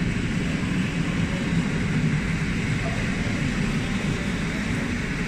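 PKP Intercity passenger coaches rolling past, a steady low rumble of wheels on rails.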